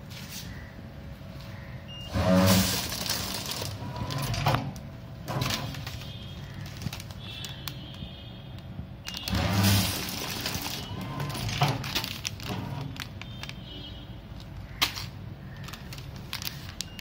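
Granule pouch packing machine running through its cycle: a loud clatter with a low hum about every seven and a half seconds, three times, with lighter clicks between, over a steady running noise.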